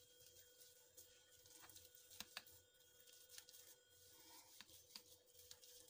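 Near silence: faint scattered taps and scrapes of boiled potatoes being mashed in a bowl, over a faint steady hum.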